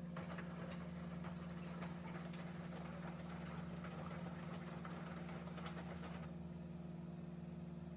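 Front-loading washing machine running: a steady hum under light, irregular patter and clicks that stop about six seconds in.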